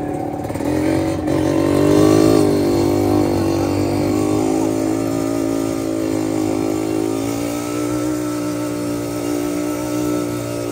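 Yamaha DT two-stroke motorcycle engine under way, revving up about a second in and then running fairly steadily at speed, with a slight rise in pitch again about two-thirds through.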